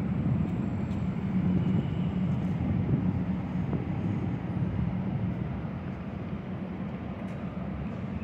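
Manhattan street traffic: a steady low rumble of cars and taxis on the avenue, with no single vehicle standing out.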